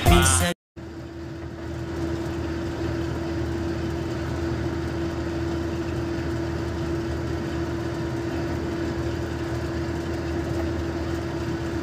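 Music breaks off about half a second in, then a truck's engine and tyres are heard from inside the cab at cruising speed: a steady drone and road noise with a constant hum.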